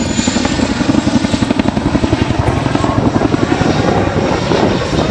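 Helicopter flying past with a loud, rapid, rhythmic beat of rotor blades.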